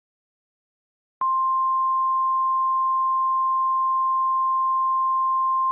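NOAA Weather Radio warning alarm tone: a single steady 1050 Hz sine tone that starts abruptly about a second in and holds unchanged, signalling that an emergency alert broadcast follows.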